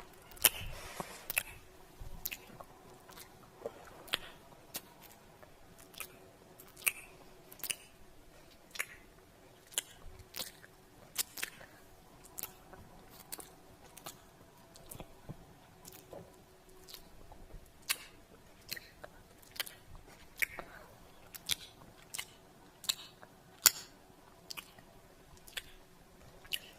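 Lip and kiss sounds: a string of short, wet smacks and pops, irregularly spaced at roughly one or two a second, a few of them louder than the rest.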